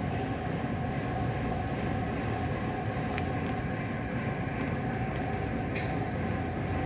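Steady low rumble with a faint steady hum, broken by two faint clicks about three and six seconds in; no loud bang stands out.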